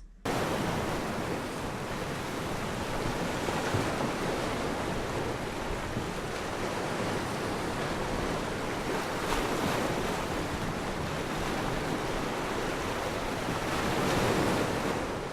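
Loud, steady rushing noise with no distinct events, swelling slightly near the end.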